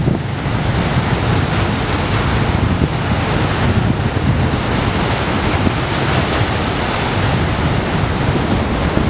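Choppy sea waves washing and splashing against large rock blocks at the water's edge, a steady surging noise, with wind rumbling on the microphone.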